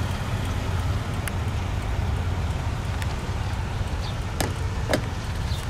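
A 2010 Lexus RX350's 3.5-litre V6 idling with a steady low rumble, heard beside the car with the door open. Two sharp clicks come about four and a half seconds in.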